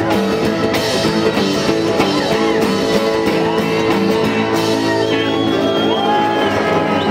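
Live rock'n'roll band playing the instrumental close of a song on acoustic guitars, with shouts from the singer and crowd over the music.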